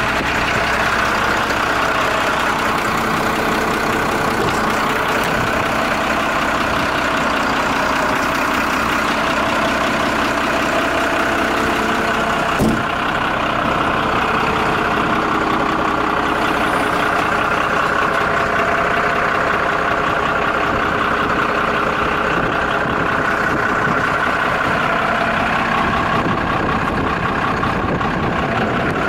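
Iveco Eurocargo 135E23 truck's six-cylinder diesel engine idling steadily, with a single short knock near the middle.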